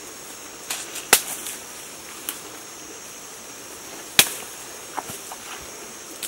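Young pine shoots snapping as they are broken off by hand: two loud, sharp snaps, about a second in and about four seconds in, with a few lighter cracks between.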